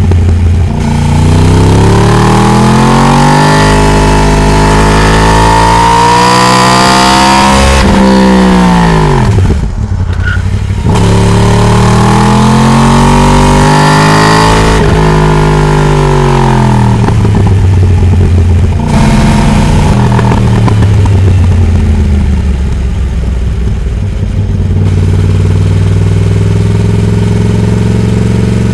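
Yamaha R1 (RN22) crossplane 'big bang' inline-four under hard acceleration, its engine note climbing for several seconds and then dropping sharply as the throttle is shut. This happens twice, about 8 and 15 seconds in, and the engine then holds steadier, lower revs near the end.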